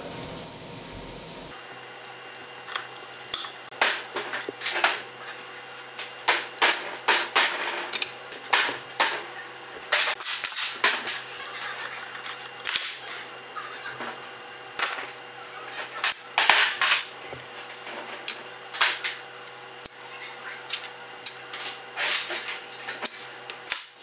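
Irregular sharp metallic clicks and clinks of a wrench and small steel diesel injector parts being handled on a workbench, during the teardown of mechanical fuel injectors, over a steady low hum.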